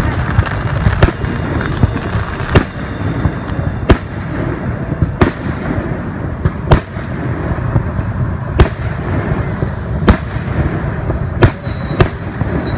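Aerial fireworks shells bursting: about nine sharp bangs, a second or two apart, over a steady low rumble and crackle. A few faint falling whistles come in near the end.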